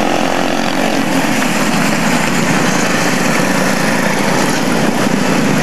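Several quarter midget race cars' small engines running together at a steady racing pace, a constant engine drone over a noisy, hissing background.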